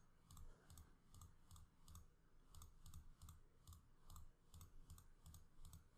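Faint computer mouse clicks in a steady series, about two or three a second, as edges are selected one by one.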